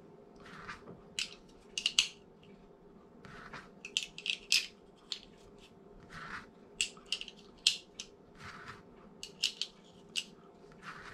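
Brass .30-06 cartridges clicking against each other and the steel M1 Garand en bloc clip as they are pressed in one at a time in a staggered stack. Sharp metallic clicks come in small clusters every second or two, with softer rubbing sounds between them.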